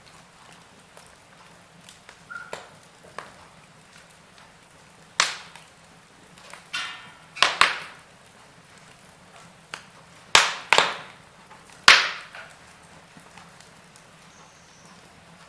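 Wood burning in a fireplace, crackling: a low hiss with scattered sharp pops, the loudest coming in the middle stretch, some in quick pairs.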